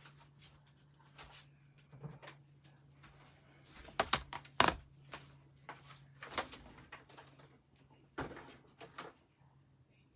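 Rummaging through stamping supplies: a string of light clicks, knocks and clatters, the loudest bunched about four to five seconds in, over a faint steady low hum.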